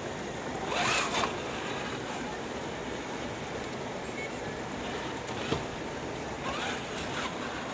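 Steady rush of running water, with two short whirring zips from a small RC crawler's electric motor: one about a second in and another near the end.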